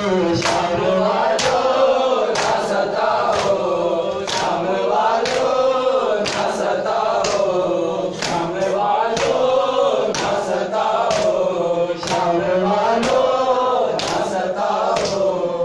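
Men chanting a noha in chorus, with matam (rhythmic chest-beating): a sharp slap about once a second, often in quick pairs, keeping time under the singing.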